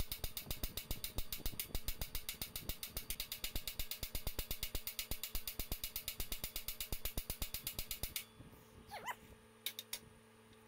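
Hand ratchet wrench clicking rapidly and evenly as it is worked back and forth on a fastener, stopping about eight seconds in. A couple of short squeaks follow near the end.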